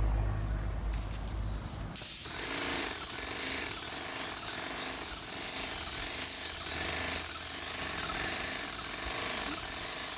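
Airless paint sprayer gun spraying paint onto a bus's side with a steady, loud hiss that starts abruptly about two seconds in.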